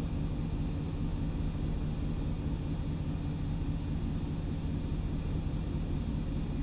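Steady low hum of an idling vehicle engine, with a rumbling low end that does not change.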